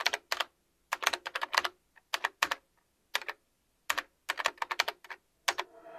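Computer keyboard keys clicking in quick, irregular bursts of keystrokes with short pauses between them, as a word is typed.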